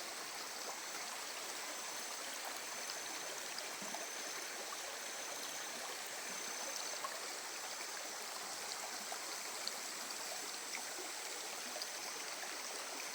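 Small shallow river flowing and gurgling steadily over stones, with scattered small splashes and trickles.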